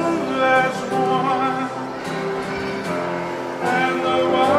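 Live song performance: singing with guitar accompaniment, in long held notes that swell again near the end.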